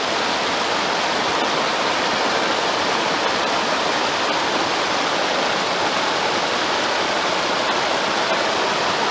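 Fast, shallow river rushing over rocks in a riffle: a steady, even rush of water.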